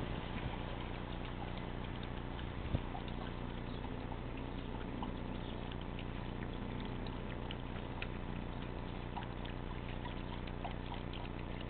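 Dog lapping water from a bowl: faint, irregular wet clicks and slurps, with one sharper tick nearly three seconds in.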